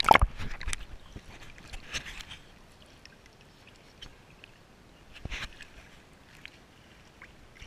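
Pool water splashing and sloshing around an action camera in its waterproof housing as it moves through and at the surface. A loud splash comes right at the start, then scattered small splashes and clicks, with a stronger splash about five seconds in.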